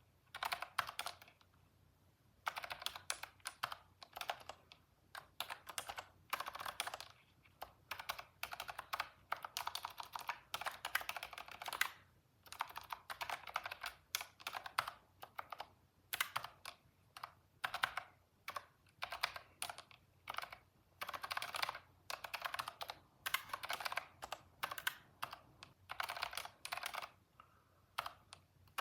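Computer keyboard typing in quick bursts of keystrokes, each burst about a second long with short pauses between, as code is typed.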